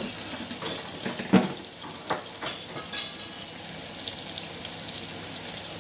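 Sliced onions sizzling as they fry in a stainless steel skillet, a steady hiss. Several sharp knocks come in the first three seconds, the loudest about a second and a half in.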